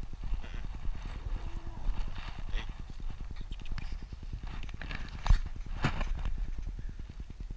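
Rapid, regular low thumping of footsteps and paws on a dirt trail, muffled through a GoPro housing, with a couple of sharper clicks about five and six seconds in.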